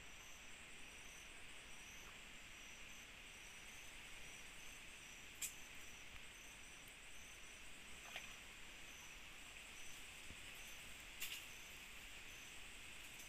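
Faint night-time chorus of crickets and other insects: a steady high hiss with a chirp repeating in a regular rhythm above it. Three short sharp clicks stand out, about five, eight and eleven seconds in.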